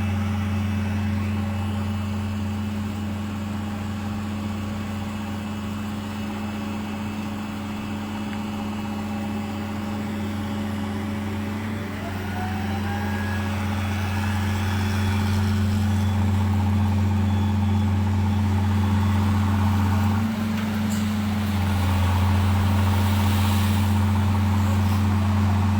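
A large vehicle engine running steadily with a low hum. It dips briefly about twenty seconds in, then runs a little louder.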